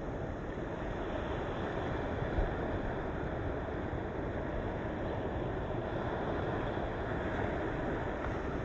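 Steady rush of sea waves breaking on the shore of a rocky cape, with a brief low bump about two and a half seconds in.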